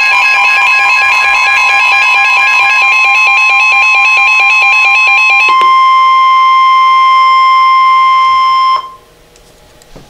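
Weather radio receiver sounding an alert for a flood warning. Rapidly alternating electronic beeps play over a steady warning tone. The beeps stop about five and a half seconds in, and the steady tone continues alone until it cuts off suddenly near nine seconds in.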